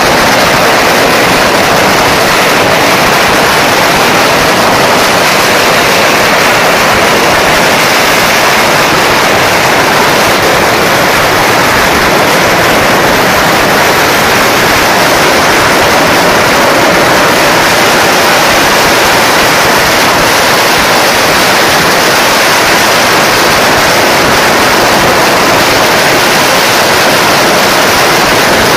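Long strings of red Chinese firecrackers going off on pavement: a loud, unbroken rapid-fire crackle of bangs so dense the individual pops run together.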